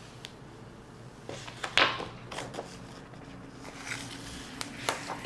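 Rustling and crinkling of a monitor's protective wrap being pulled off the screen, with a few light clicks and knocks of handling near the end.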